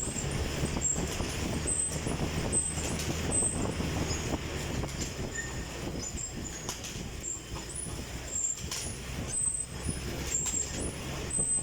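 Stationary exercise bike being pedalled: a steady whirring hum, with a faint high tick that repeats about every 0.8 seconds.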